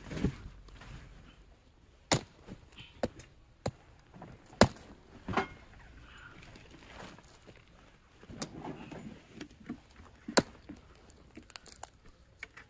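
Dry wood being broken apart by hand into small pieces: a series of sharp cracks and snaps at irregular intervals, with splintering and rustling between them.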